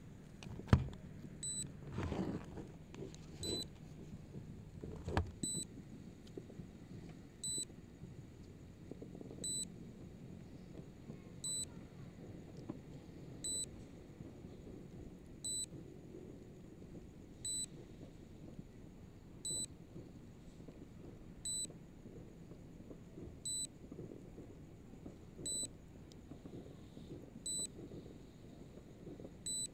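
Short high electronic beep repeating about every two seconds from the SJRC F11s 4K Pro drone's controller app, a warning alert sounding while the drone is past 2 km at its distance limit. A sharp knock about a second in and a few softer knocks over the next few seconds.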